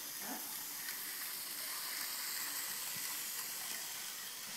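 HO scale model train running on its track: a steady whirring hiss of the small motor and wheels on the rails, with a couple of faint clicks.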